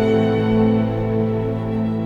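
Background music: a slow, sad piece of held chords with bowed strings, easing slightly in level toward the end.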